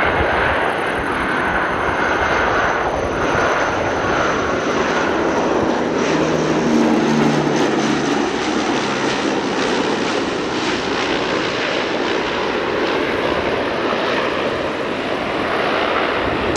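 Antonov An-12's four Ivchenko AI-20 turboprop engines running as it lands, a steady loud mix of propeller and turbine noise. A low hum is strongest about halfway through as the aircraft passes closest at touchdown.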